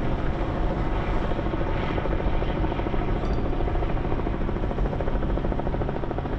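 Helicopter running steadily: an unbroken drone of engine and rotor.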